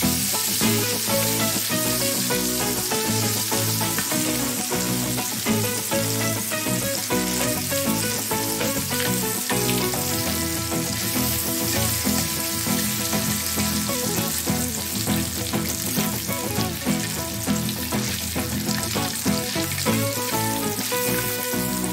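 Hotdog pieces sizzling as they fry in hot oil in a pan, turned now and then with metal tongs, over background music.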